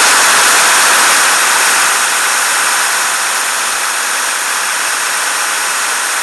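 Ultrasound from a running bearing at 30 kHz, made audible through an Ultraprobe 9000 ultrasonic detector: a steady, loud rushing hiss. It drops a little in level about two seconds in as the sensitivity dial is turned down to bring the sound into range.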